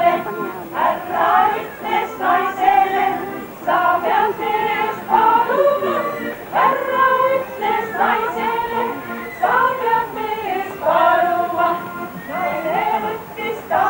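Women's choir singing a folk song, in sung phrases with held notes.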